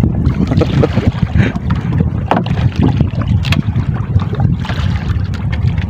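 Wind buffeting the microphone in a steady, uneven rumble, with water sloshing along a small outrigger boat's hull. A few light knocks sound about two and three and a half seconds in.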